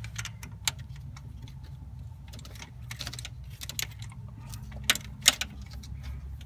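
Ratchet wrench clicking in short, irregular runs while snugging a spark plug down into a freshly installed thread-repair insert in a Ford 5.4 Triton cylinder head. A couple of sharper clicks come about five seconds in, over a steady low hum.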